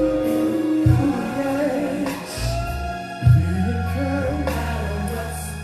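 Gospel music playing with long held sung or keyboard notes over a bass line that changes chord about every one to two seconds.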